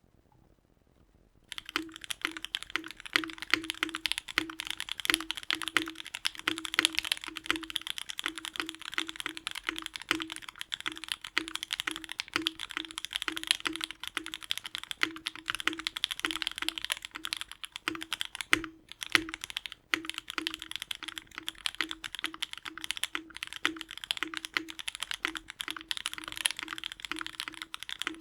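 Fast typing on a Mode Eighty Deco custom mechanical keyboard with an FR4 plate, lubed and filmed JWK Haluhalo switches and GMK ABS keycaps. A dense stream of keystrokes starts about a second and a half in. A low, deeper thud recurs every half second or so, the spacebar sounding markedly deeper than the alpha keys.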